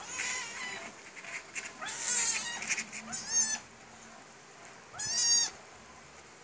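A kitten mewing: about four short, high-pitched cries, each rising then falling in pitch, a second or two apart.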